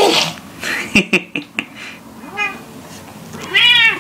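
A house cat meowing: a short call about two and a half seconds in, then a loud, rising-and-falling meow near the end. At the start a baby's laugh trails off, and a few sharp clicks come about a second in.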